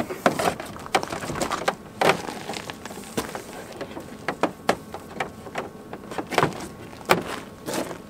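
Heavy power cable being pulled and gathered by hand, rubbing and scraping with irregular clicks and knocks as it hits the vehicle.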